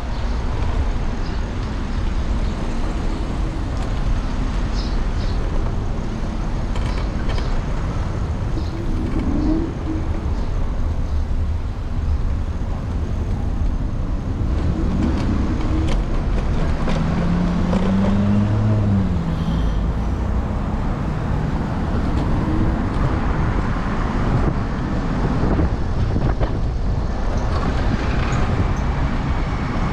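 City street traffic: steady road and engine noise with a low rumble, and a heavy vehicle's engine rising and falling as it passes about two-thirds of the way through.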